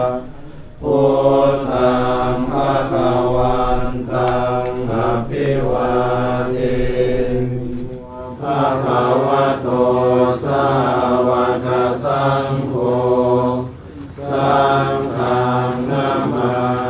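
Group Buddhist chanting in unison: many voices reciting on a steady low pitch in long phrases, with short breaks about a second in, at around eight seconds and near fourteen seconds.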